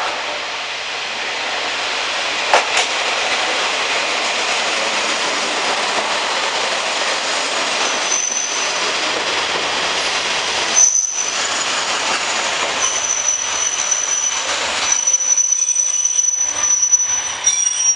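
KiHa 47 two-car diesel railcar running into a station and past along the platform, with a sharp click a couple of seconds in. In the second half a high-pitched squeal comes and goes as the train slows to a stop.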